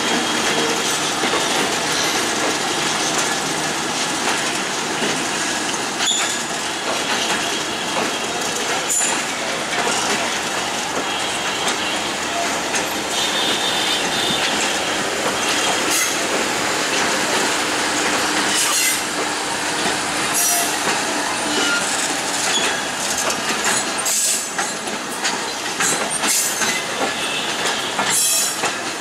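Passenger coaches rolling past close by, their steel wheels clattering over the rail joints, with short high-pitched wheel squeals now and then, more often in the second half.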